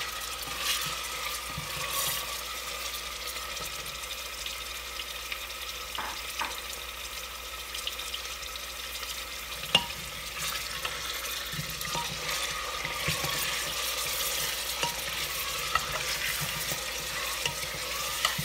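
Raw mutton pieces sizzling in hot oil in a pressure cooker as they are browned, stirred with a spatula that now and then knocks and scrapes against the pot.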